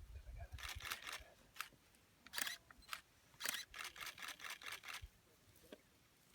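Camera shutters clicking. There are a few single shots, then a fast burst of about six frames a second lasting over a second.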